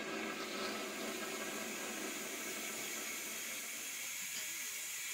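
Steam locomotive drawing slowly into a station platform, with a steady hiss of steam; faint voices join near the end.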